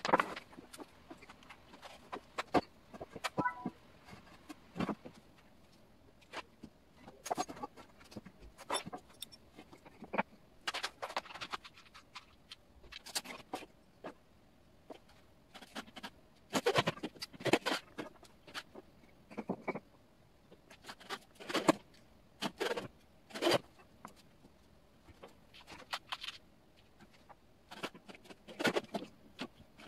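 Irregular clicks, knocks and short scrapes of tools and materials being handled during woodworking, some coming in quick clusters.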